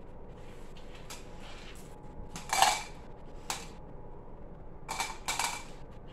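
Skittles candies dropped by hand into clear cups: scattered light clicks and rattles, the loudest about two and a half seconds in and a few more close together near the end.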